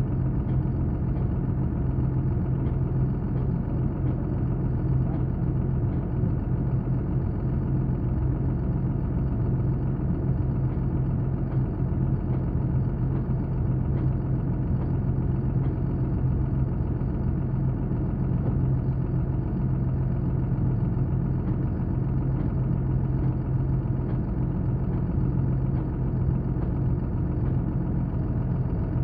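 Engine idling steadily, an even low drone that does not change in pitch or level.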